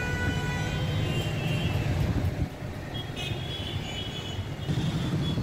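Car traffic moving through a flooded road: a steady low engine rumble, with a few faint high tones now and then.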